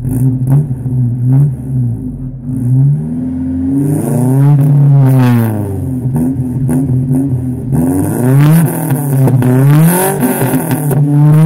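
Exhaust of a 1994 Holden Rodeo's Isuzu 4ZE1 2.6-litre four-cylinder petrol engine being revved: short throttle blips at first, a bigger rev that climbs and falls back about four seconds in, then several quick revs near the end.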